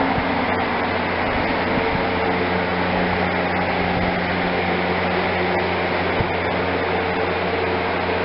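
Steady background hum and hiss, unchanging, with no distinct events.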